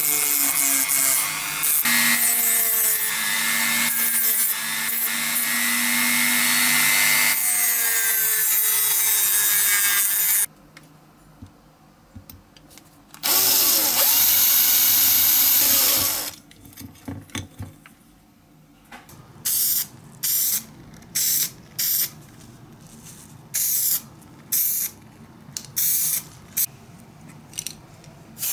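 Rotary tool with a grinding stone running for about ten seconds, its whine rising and falling in pitch as it works metal. Then a cordless drill bores into a wooden block for about three seconds. From about twenty seconds in, an aerosol spray can gives repeated short hisses, about one a second.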